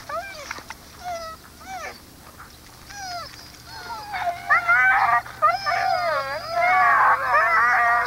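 Husky sled dogs yipping and whining: a few scattered short cries at first, then from about four seconds in many dogs at once in a louder, overlapping chorus of yelps and howls.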